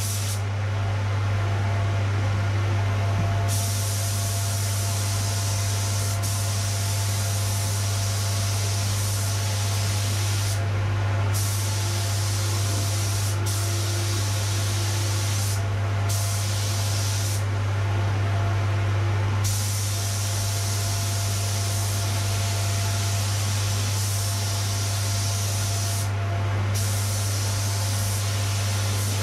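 DeVilbiss SRI Pro spot-repair spray gun hissing as it sprays clear lacquer at 2 bar, the hiss breaking off briefly about five times as the trigger is released between passes. Underneath, an extractor fan keeps up a loud steady hum.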